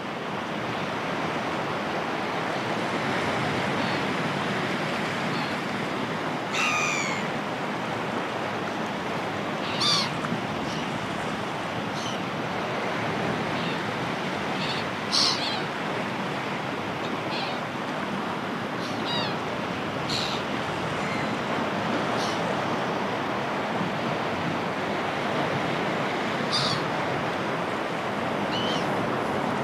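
Sea waves washing steadily on the shore, with gulls giving short, high calls over them again and again, some of the calls falling in pitch. The loudest calls come about a third of the way through and again about halfway.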